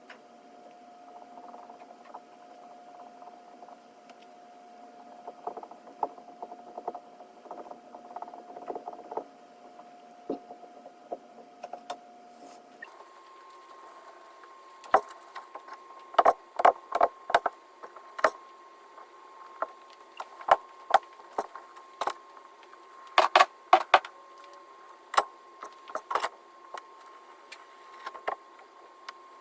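Irregular taps, clicks and knocks of hand tools and leather-hard clay slabs on a work surface, sparse at first and then denser and louder, over a steady hum that steps higher in pitch about 13 seconds in.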